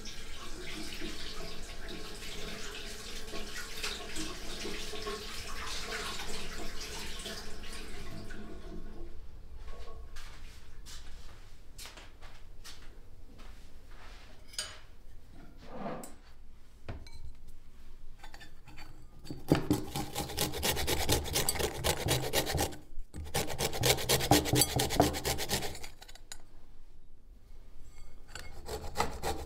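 Hands rubbing and kneading something in a white bowl: a coarse, gritty scraping. It comes in a long spell in the second half, then again near the end.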